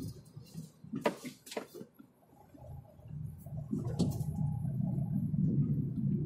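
Low rumble of a car's engine and tyres heard from inside the cabin, fading almost away for a couple of seconds as the car slows at a corner, then building again as it pulls away. Three sharp knocks or clicks stand out, two close together about a second in and one about four seconds in.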